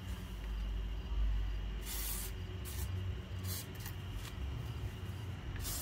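A WD-40 aerosol can sprayed in about five short hissing bursts onto the brake caliper mounting bolts to loosen them, the first and longest about two seconds in and the last near the end, over a steady low hum.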